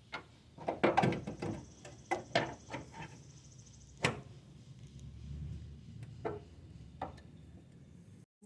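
Scattered knocks and clinks of metal parts and tools being handled while an aftermarket front camber arm is fitted, with one sharp knock about four seconds in.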